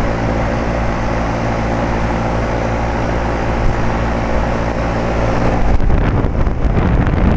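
A 2007 Carrier 2.5-ton central air-conditioner condensing unit running with a steady hum, sounding normal. About six seconds in the hum gives way to a louder, rougher rush of air buffeting the microphone, like the fan's discharge out of the top.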